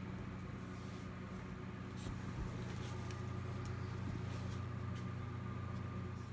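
Steady low mechanical hum of background machinery, with a thin higher tone joining about three seconds in and a few faint clicks and taps.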